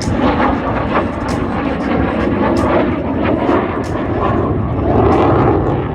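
Loud, steady jet noise from the F-35B's Pratt & Whitney F135 turbofan engine in flight, swelling a little about five seconds in.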